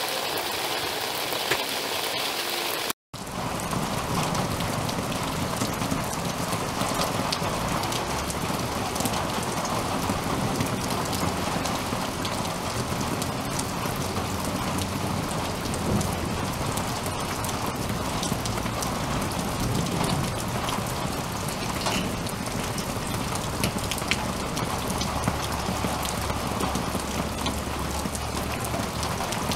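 Steady rain falling, with individual drops ticking sharply on a hard surface close by. The sound cuts out for an instant about three seconds in, and a low rumble builds in the last few seconds.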